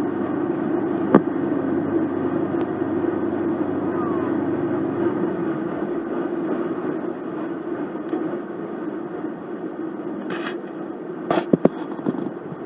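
Boat engine running with a steady low drone, easing slightly partway through, with a few brief clicks, most of them near the end.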